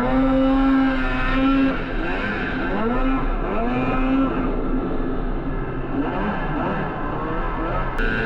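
Snowmobile engine running under changing throttle, its pitch rising and falling again and again.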